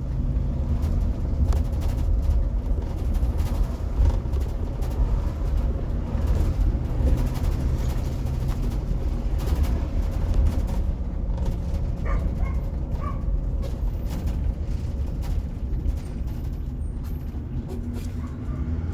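2018 Blue Bird electric school bus driving, heard from inside the cabin: steady low road and tyre rumble with a faint even hum from the electric drive and light body rattles, and no engine note.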